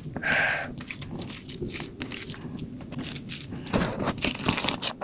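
Close-miked food handling: fingers scooping and squeezing a handful of spiced rice from a platter, making many small wet clicks and crackles that grow denser near the end.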